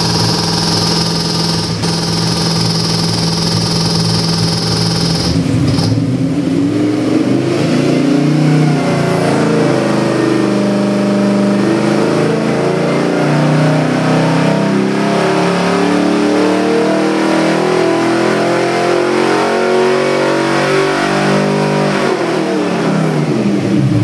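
Ford 408 cubic-inch Windsor stroker V8 (351W-based, FiTech fuel injection) on an engine dyno. It runs at a steady speed for about five seconds, then pulls under load with the revs climbing steadily for about fifteen seconds. Near the end the revs drop quickly as the pull ends.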